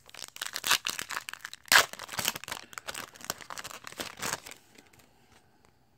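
Foil wrapper of a Panini Prizm retail trading-card pack being torn open and crinkled by hand, with one sharp loud rip about two seconds in; the crackling dies away after about four and a half seconds.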